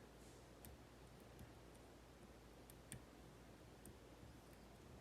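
Faint, scattered clicks of lock picking tools working the pins of a Kaba 8 dimple lock during picking: several small ticks at irregular intervals over a very quiet background.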